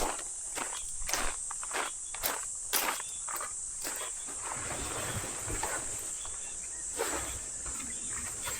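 Steady high-pitched insect chirring, typical of crickets, with irregular sharp taps and knocks about once or twice a second over it.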